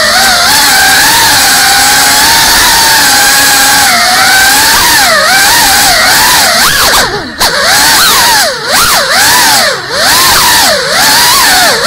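GEPRC Cinelog 35 cinewhoop quadcopter's motors and ducted propellers whining loudly, the pitch wavering with throttle. From about seven seconds in the throttle is chopped and punched several times, the whine dipping low and swooping back up each time.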